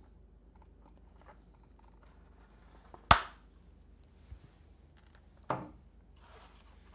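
Wire cutters snipping through a model aircraft's wire push rod: one sharp, loud snap about three seconds in. A second, lighter click follows about two seconds later.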